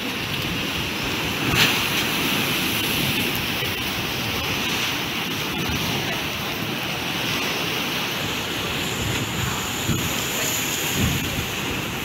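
Storm surf on rough sea breaking and washing against a concrete breakwater: a steady rushing noise, with wind buffeting the microphone.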